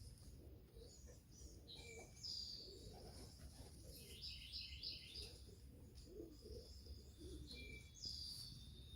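Faint chirps and calls of small birds: a falling call about two seconds in, a quick run of about six notes around four to five seconds in, and another falling call near the end, over a low background rumble.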